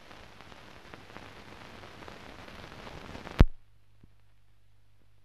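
Hiss and crackle of a film transfer with no recorded sound, ending with a single sharp pop about three and a half seconds in, after which only a faint low hum remains.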